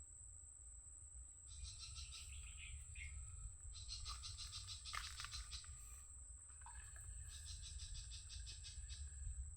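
Outdoor wildlife ambience: a steady high-pitched drone with three bouts of rapid, trilled chirping over it, and a low rumble underneath.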